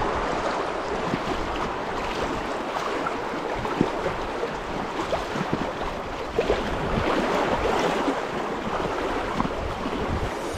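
Steady rush of river water with wind buffeting the action camera's microphone, broken by a few brief knocks.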